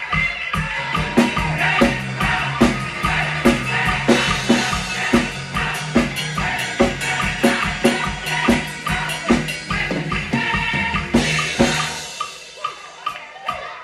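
Mapex drum kit played live along to a gospel song's recording: a steady kick-and-snare groove over the track's bass and band. Near the end the bass drops out briefly and the music thins.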